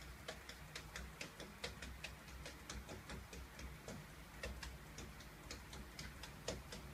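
Faint, quick, uneven clicking, several clicks a second, over a low steady hum.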